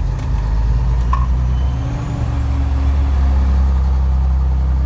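Old bonneted Scania truck's diesel engine running under way, heard inside the cab. The engine note dips briefly and then comes back louder from about two seconds in, as with a gear change.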